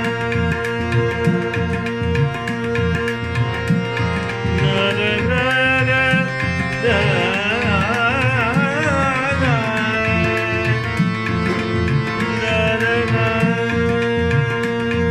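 Backing music for a Hindi film song: a steady tabla rhythm under sustained melody, with a wavering, vibrato-laden melodic line through the middle.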